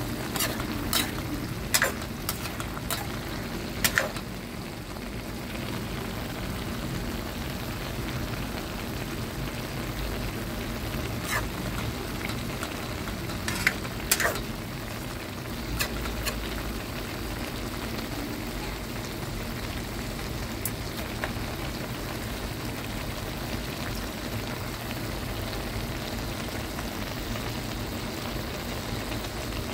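Snow peas and sausage sizzling steadily in a frying pan as they are stir-fried. A spatula knocks and scrapes against the pan, several sharp clacks in the first few seconds and again around fourteen seconds in.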